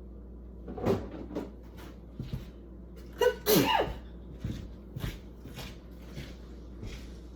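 A person sneezes loudly a little over three seconds in, the voice dropping sharply in pitch, after a smaller breathy outburst about a second in. The sneezing is set off by the cleaning products she is using, and short knocks and clatter from the cleaning are heard around it.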